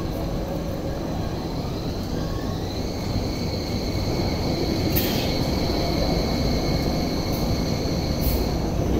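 Hong Kong Light Rail vehicle pulling away and passing close by: a whine rises in pitch over a couple of seconds as it accelerates, then holds steady over a low rumble of wheels on rail. A few sharp clicks come about five and eight seconds in.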